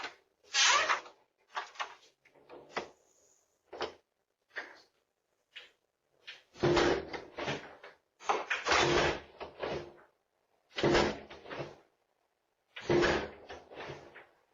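A door being banged and slammed again and again. There are a few lighter knocks at first, then from about halfway through a string of heavy slams about every two seconds, each followed by a brief rattle.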